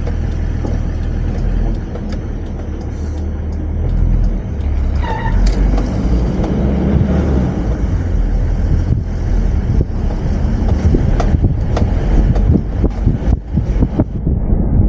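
Toyota Land Cruiser 70 (HZJ71V) with its 1HZ diesel running while driving slowly, steady engine and road rumble heard through an open window. A brief high chirp comes about five seconds in, and uneven knocks and wind buffeting in the second half.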